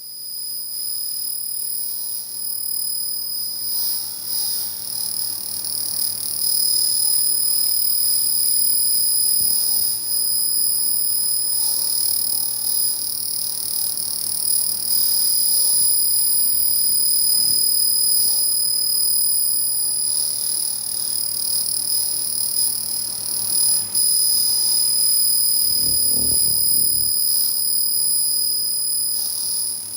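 Pulsed laser cleaner ablating rust and scale off a steel rail end: a steady, high-pitched whine that holds one pitch.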